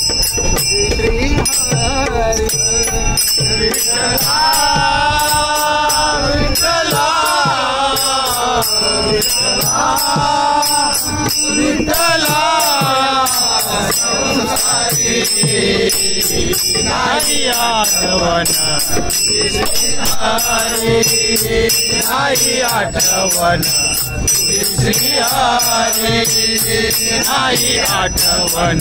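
Men singing a devotional Marathi abhang to Vitthal together, accompanied by brass hand cymbals (taal) striking in a steady rhythm with a ringing tone, and a hand drum.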